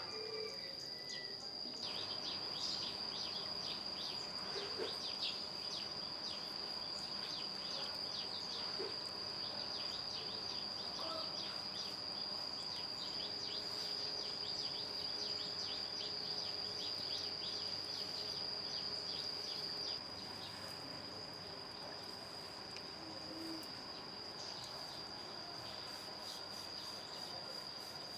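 Insects calling: a steady high-pitched drone with rapid chirping over it, the chirping thinning out about two-thirds of the way through.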